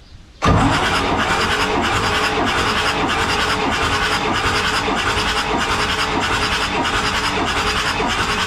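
Marine diesel engine being cranked over by its starter motor during a compression test on cylinder four, with a steady rhythmic churn starting about half a second in.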